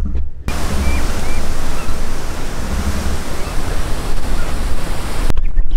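Wind buffeting the microphone: a loud, steady rushing noise that starts suddenly about half a second in and cuts off abruptly near the end.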